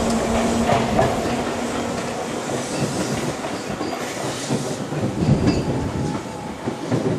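Two-car Tobu 8000 series electric train running past, its wheels clacking over the rail joints with a brief squeal of wheels on the curve, growing fainter as it draws away.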